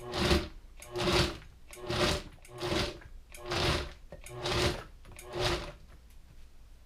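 Vitamix S55 personal blender's motor run in short pulses, about one a second, seven in all, stopping near the end, lightly chopping peas, vegetables and bacon stirred into hot soup.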